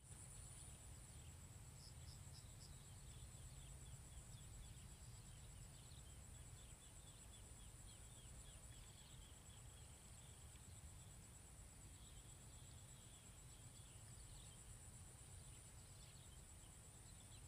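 Near silence with a faint, steady high-pitched insect trill and scattered faint chirps above a low rumble.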